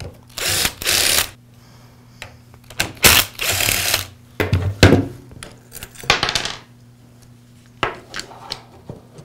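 Screws being backed out of an Echo string trimmer's plastic trigger-handle assembly with a screwdriver, then the handle half pulled off the shaft. There are several grinding, scraping bursts up to about a second long, with scattered clicks and knocks of plastic and metal.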